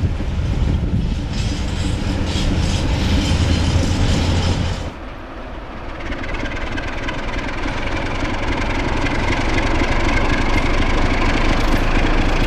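A diesel locomotive hauling a freight train, its engine rumbling low. After a cut about five seconds in, a lone electric locomotive running light, its running noise growing louder as it approaches.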